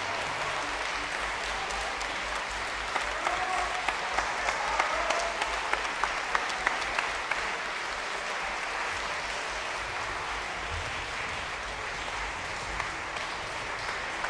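A concert-hall audience applauding steadily, with a few louder, sharper claps close by a few seconds in.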